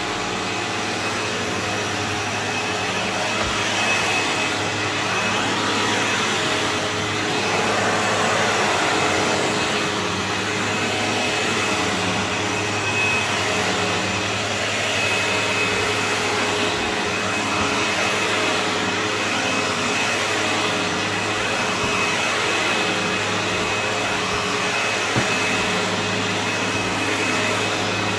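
Sebo X4 upright vacuum cleaner running steadily as it is pushed over carpet, a rushing motor sound with a steady high whine on top.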